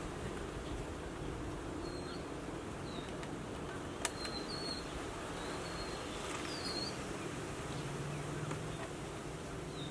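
Outdoor ambience: a steady background hiss with short high bird chirps scattered throughout, a single sharp click about four seconds in, and a faint low buzz near the end.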